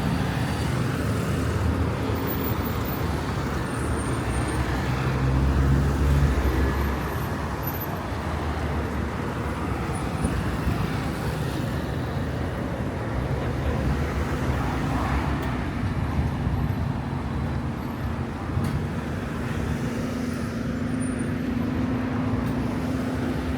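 Steady city road traffic, with one vehicle passing louder and lower about five to six seconds in and a steady engine hum near the end.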